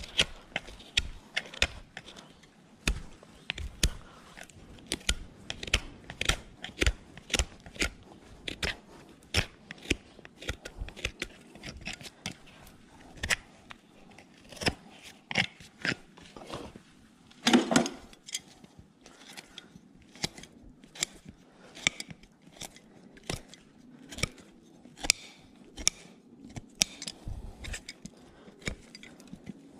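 Hoof knife paring dry horn from a horse's sole: a steady run of short, sharp cuts, about one or two a second, with one louder thump about two-thirds of the way through.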